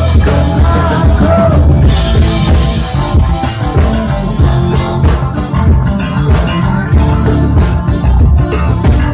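Live punk rock band playing loud, with drum kit, bass and electric guitar, recorded with a heavy, muddy low end.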